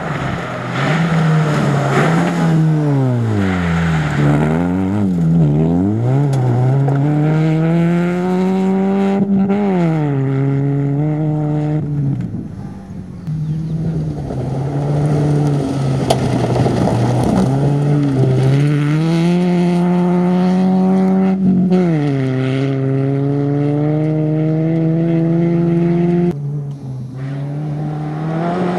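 Ford Focus rally car engine at full stage pace: the pitch climbs hard under acceleration and drops sharply on lifts and downshifts for the corners, over a haze of gravel noise from the tyres. Near the end it cuts to a second Focus's engine climbing in the same way.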